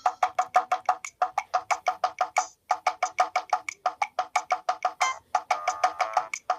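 A Sony Ericsson W595 ringtone playing through a Nokia 7100 Supernova's small loudspeaker: a fast melody of short, clipped notes, about eight a second, with a few brief pauses and no bass.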